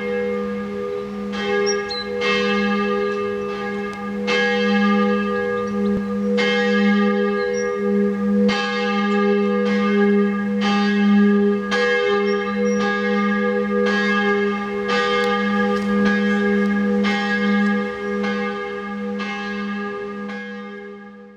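Church bells ringing, with fresh strokes every one to two seconds over their steady ringing tones, fading out near the end.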